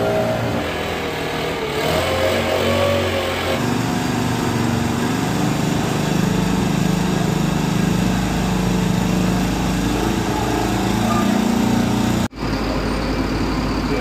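Small engines of road-surfacing equipment running steadily, with abrupt changes in tone a few times and a brief dropout near the end.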